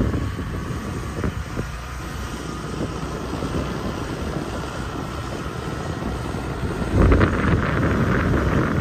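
Wind buffeting the microphone over a low rumble, with a faint steady whine in the middle, growing louder and rougher about seven seconds in.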